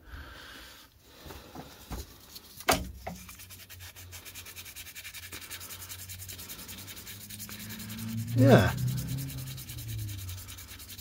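Fingers rubbing and turning a metal lathe chuck and workpiece: a fine, fast, evenly repeating scraping, with a sharp knock about three seconds in and a short low hum near the end.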